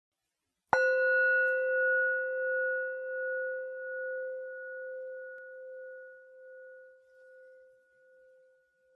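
A single struck bell rings out with a clear tone and a few higher overtones, struck just under a second in, then slowly fades with a steady pulsing wobble, still faintly ringing at the end.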